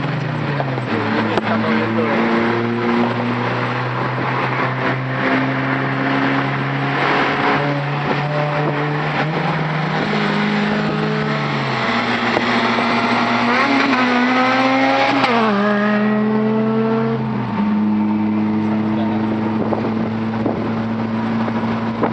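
Engine of a modified compact car with an aftermarket exhaust, running loudly at a steady pitch that steps up and down several times. It climbs to its highest pitch around 15 seconds in, then drops sharply.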